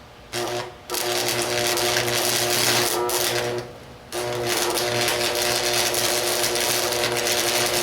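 Arc welding with a 1/8-inch 6011 stick rod: a steady crackle over a buzzing hum. The arc breaks off twice, briefly just before a second in and for about half a second near the middle, then is struck again.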